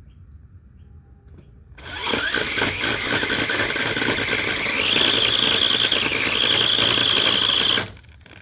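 Makita brushless electric pole chainsaw starting up about two seconds in and cutting into hardwood, a loud run with a high chain whine that steps up in pitch about halfway through, then stopping abruptly near the end.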